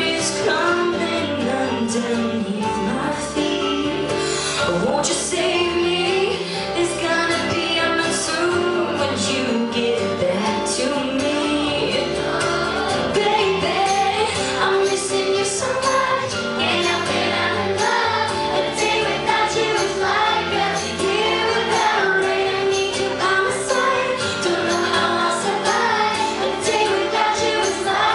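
Pop song playing, a woman singing over a full backing track.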